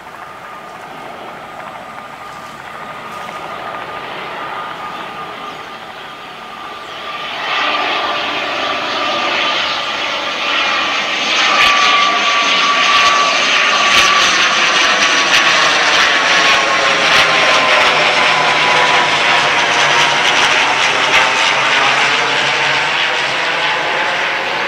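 Diesel train approaching slowly through the yard. Its engine drone grows louder, rising sharply about seven seconds in, with sharp clicks of the wheels over rail joints and points through the middle.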